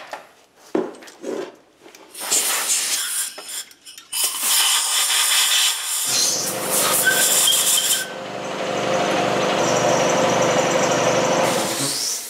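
Compressed-air blow gun blowing off a part: a few short blasts of hiss, then a long continuous blast. About six seconds in, the shop air compressor kicks on with a steady low motor hum and keeps running after the blowing stops, cycling to recover the pressure drawn down by the blow gun.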